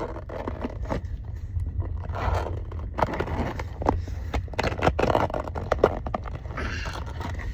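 A package being opened and unpacked by hand: irregular scraping, rustling and tearing of packaging, with scattered sharp clicks.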